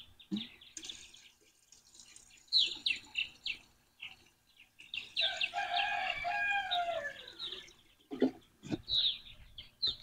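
A rooster crowing once, a single long call about five seconds in that falls in pitch at its end, with small birds chirping before and after it.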